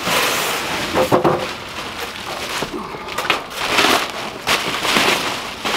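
Bubble wrap and cardboard rustling, crinkling and scraping in a series of irregular bursts as a large bubble-wrapped sheet-metal body panel is dragged up out of a tall shipping box.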